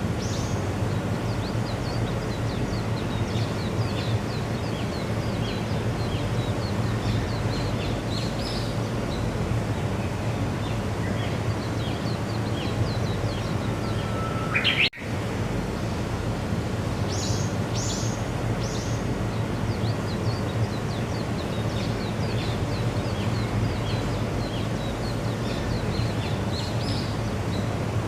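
Small birds chirping repeatedly over a steady low background rumble, with one rising call shortly before the sound drops out briefly about halfway through.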